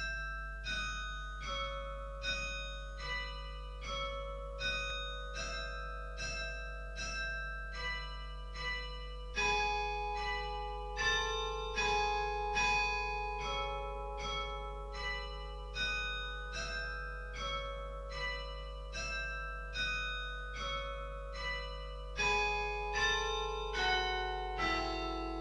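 Slow instrumental intro music: a melody of single ringing notes, plucked or struck, about one every three-quarters of a second, each dying away, over a steady low hum.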